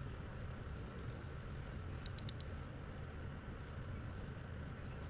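Steady low hum of room noise, with a quick run of four faint, high, ringing ticks about two seconds in.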